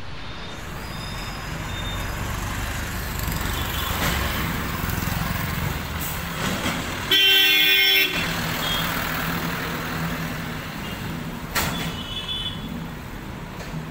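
Street traffic with motorcycles, auto-rickshaws and a water tanker lorry going by, engines running. One loud vehicle horn blast about seven seconds in, lasting under a second.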